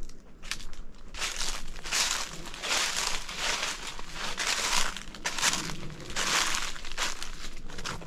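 Footsteps crunching through dry fallen leaf litter at a steady walking pace, a crackling crunch with each step.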